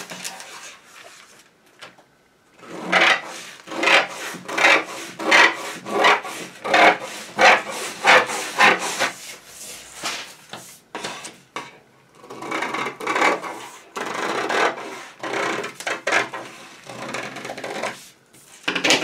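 Scissors cutting through stiff pattern paper in a run of quick crisp snips, about three a second, pausing briefly near the start and again about twelve seconds in.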